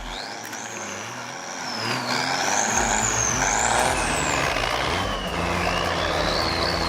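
Heavy machinery working a tree stump out: an engine running under load, with a high-pitched squeal that glides up and down. The low engine rumble grows stronger a little over halfway through.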